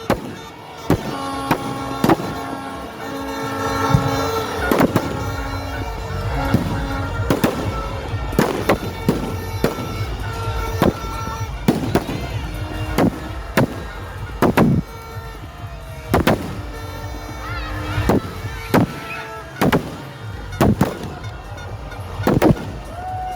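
Aerial fireworks going off in a steady barrage, sharp bangs about every second, over music playing in the background.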